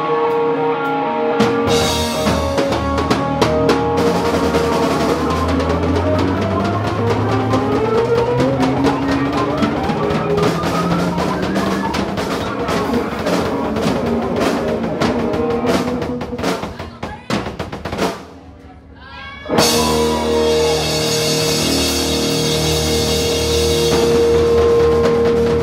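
Live rock band playing an instrumental passage: drum kit and electric guitar, with notes climbing upward in the middle. About two-thirds of the way through the band drops out briefly, then crashes back in with cymbals.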